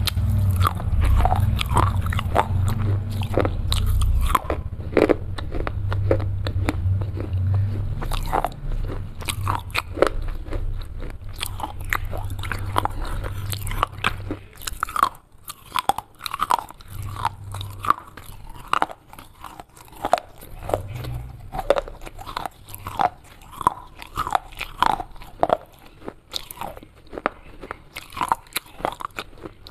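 Broken clay pieces being bitten and chewed close to the microphone: a rapid, irregular run of sharp crunches, with a low rumble under the first half.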